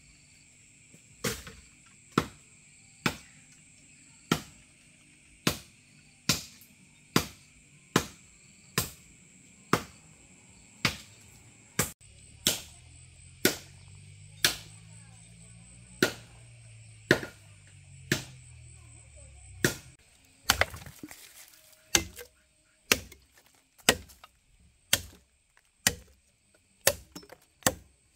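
Repeated sharp blows of a hand tool striking, about one a second, over the steady high drone of insects. A low hum rises in the middle and fades out about two-thirds of the way through.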